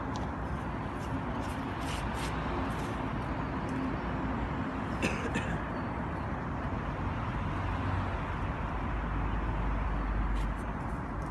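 Steady outdoor background hum, with a few light clicks and knocks as a magnet-fishing rope and magnet are handled, the sharpest about halfway through. A heavier low rumble comes in near the end.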